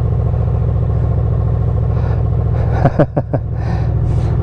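Honda VFR800F's V4 engine idling steadily on a stationary motorcycle. About three seconds in there is a quick run of three or four short rising-and-falling tones.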